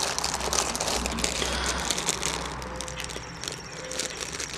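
Clear plastic bags around plastic model-kit sprues crinkling and crackling as they are handled, busiest in the first couple of seconds, then thinning out.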